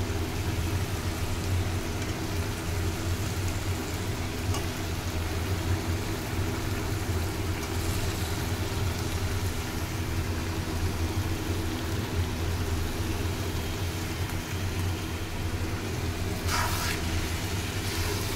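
Steady low hum with a hiss from a kadai of spinach gravy and paneer simmering on a gas burner, with a short clatter near the end.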